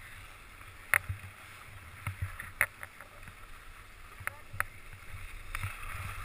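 Skis sliding and scraping over packed, tracked snow, heard through a helmet-mounted GoPro, with a low rumble and a handful of sharp clicks as the skis run over the ruts.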